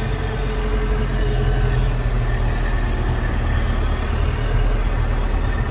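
Small truck driving, heard from inside the cab: a steady, low engine sound with road noise.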